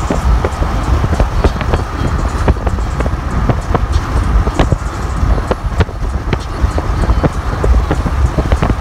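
Road and wind noise of a car driving at highway speed: a heavy, uneven low rumble with wind buffeting the microphone and scattered sharp clicks.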